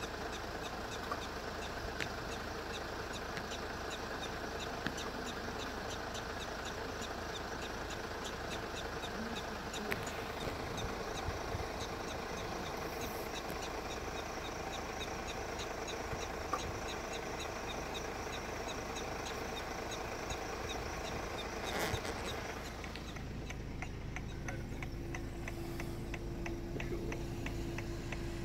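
Vehicle engine idling steadily, with a regular ticking joining about ten seconds in. About three-quarters of the way through, the sound turns duller and a steady low hum remains.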